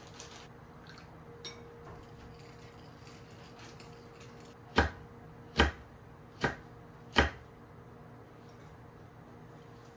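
Four sharp chops of a knife on a wooden cutting board, a little under a second apart, about halfway through, over a faint steady hum; slicing chillies.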